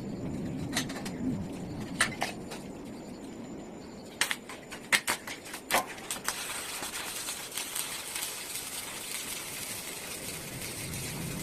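Scattered sharp knocks and clicks, with a quick run of them about four to six seconds in, over a steady hiss.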